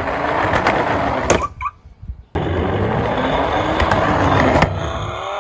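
Toy police car's wheels rolling down a slope: a rough, rumbling rattle that stops briefly about a second and a half in and then starts again. Near the end the rolling fades and faint rising tones begin.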